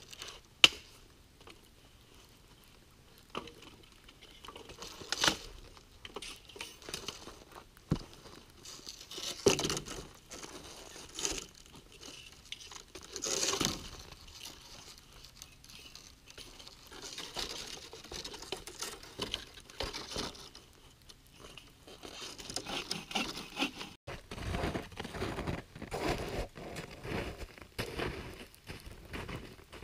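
Dry branches being snapped and handled by hand, irregular sharp cracks among snow crunching. About two thirds of the way through, this gives way to steady footsteps crunching through snow.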